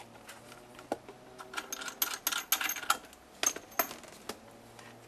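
Handling noise of equipment and packaging: a busy run of sharp clicks, taps and crinkles of hard plastic, cardboard and wrapping being moved about, densest in the middle and dying away about a second before the end.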